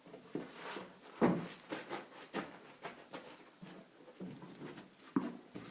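Lathe accessories and tooling being rummaged through and handled in a box: a quick string of knocks and clatters, the loudest about a second in.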